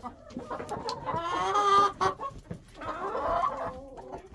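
Chickens clucking, with two drawn-out calls, one about a second in and another near three seconds, and small knocks between them.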